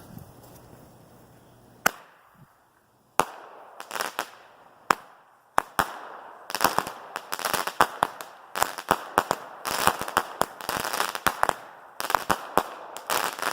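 A 16-shot firework cake (Dominator Fireworks' Rowdy Rampage) firing. A sharp shot comes about two seconds in and another about a second later. These are followed by a fast string of shots and bursts with crackling that grows dense from about six seconds on.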